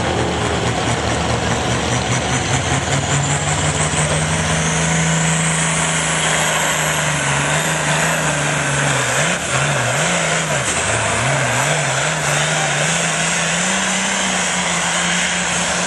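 Pulling tractor's engine running flat out under heavy load as it drags a weight-transfer sled. A high whine climbs over the first several seconds and then holds, and the engine's pitch wavers a little past halfway before it steadies.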